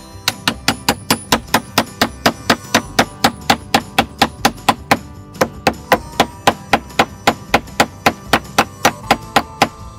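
Rapid, even hammering, about four blows a second with a brief break about halfway: beech wedges being knocked into a split in a wooden throwing target. Background music plays underneath.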